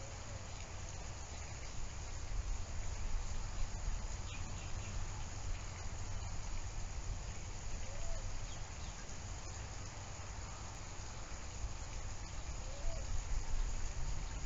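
Steady background noise from an outdoor camera microphone: a low rumble under an even hiss, with two faint short chirps about eight and thirteen seconds in.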